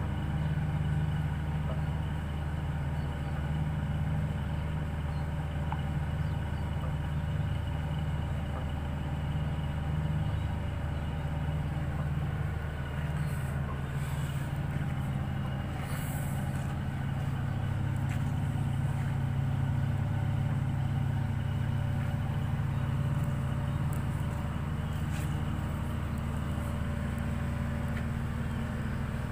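A ship's engine running with a steady low drone.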